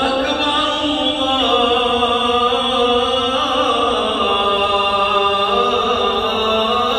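A solo voice chanting in long, drawn-out notes that slide slowly up and down in pitch.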